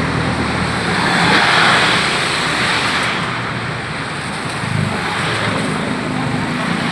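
Motor traffic on a flooded road: engines running, with a vehicle passing about a second in and a swell of rushing noise from its tyres through water.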